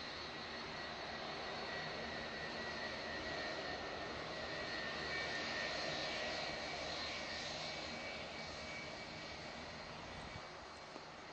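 A Boeing 757-200's two jet engines running at low power as it taxis past: a steady rush with a high whine, growing louder to about halfway through and then fading.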